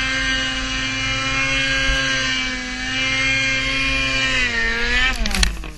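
A steady mechanical drone, like an engine or turbine running, that falls in pitch near the end and breaks off into a few sharp clicks.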